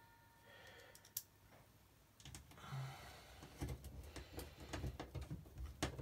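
A screwdriver turning a small screw by hand into the door-lock mounting of a washing machine's front panel. It makes a faint run of small, irregular clicks and scrapes that starts about two seconds in, after one lone click.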